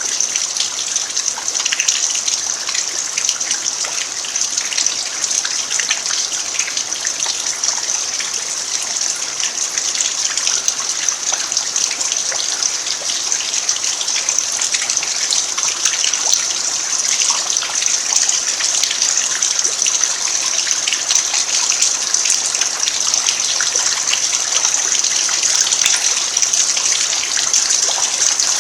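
Steady rain falling on a bare earth yard: an even hiss of rain with a dense patter of drops and running water.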